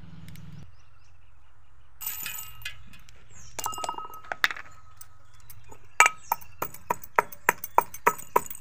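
Whole spice seeds clinking into an aluminium mortar, then a metal pestle pounding them from about six seconds in, about four strikes a second, each strike ringing against the metal.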